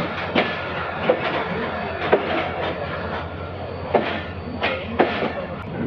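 Passenger train running on the track: a steady rumble with irregular knocks and clacks of the wheels over rail joints and the coaches jolting.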